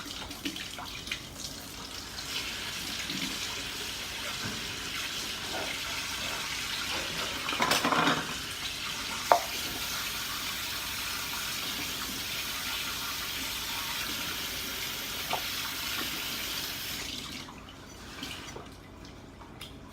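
Water running steadily from a tap, shut off a few seconds before the end, with a sharp knock about nine seconds in.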